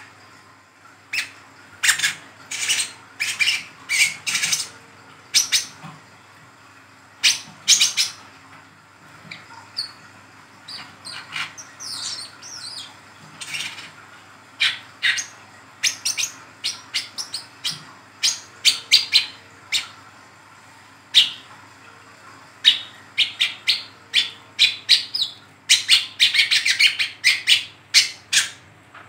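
Juvenile brown-throated sunbird (wiceh trotol) giving sharp, high twittering calls in quick irregular bursts, the 'ngeriwik' chatter, busiest near the end.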